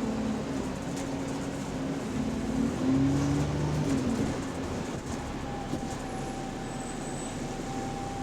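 Bus drivetrain heard from on board while the bus is moving: a low engine and transmission hum that changes pitch in steps and peaks about three seconds in, then a thin steady whine from about five seconds in. This is the subtle odd noise from the differential.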